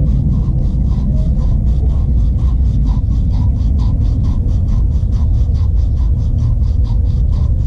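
Pipe being sanded by hand in quick back-and-forth strokes, about three rasps a second, over a steady low rumble.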